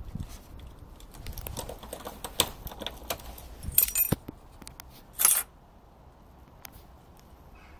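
Keys and loose wiring rattling and clicking as they are handled at a Yamaha R125 motorcycle's ignition, with a jingle about four seconds in and a short louder burst a little after five seconds. The engine is not running.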